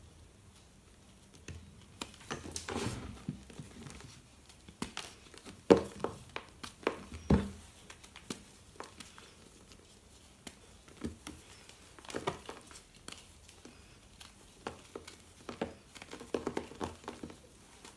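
Reformed gym chalk blocks crushed and crumbled by hand: irregular dry crunches and crumbly patter, with the sharpest snaps about six and seven seconds in, a quieter spell in the middle, and more clusters of crunching near the end.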